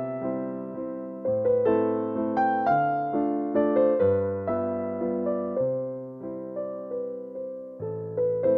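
Background piano music: a melody of struck notes at an even pace, each fading before the next.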